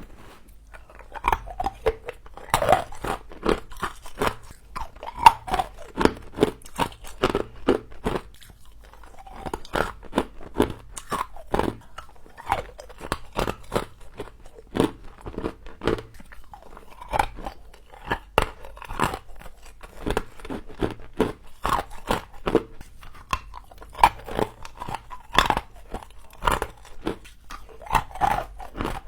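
Person biting and chewing humidifier frost: dense, irregular crunches several a second, with a short lull about eight seconds in.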